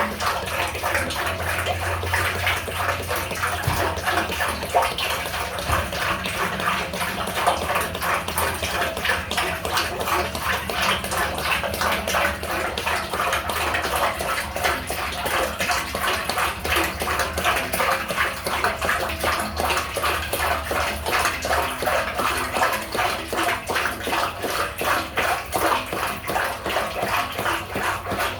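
Used cooking grease poured in a steady stream through a small opening into a grease dumpster, a continuous splashing, gurgling pour that flutters rapidly in loudness.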